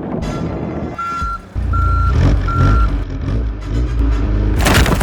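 Truck reversing alarm beeping steadily, about four beeps less than a second apart, over a low engine rumble. A loud rush of noise comes in near the end.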